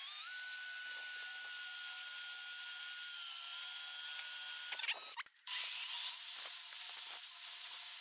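Combi drill in a drill guide boring holes through 18 mm MDF: a steady motor whine that sags slightly in pitch as the bit cuts. It stops about five seconds in and runs again for the next hole.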